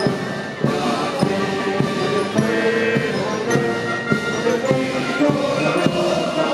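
Military marching band playing a march: held brass notes over a steady drum beat, a strike about every 0.6 seconds.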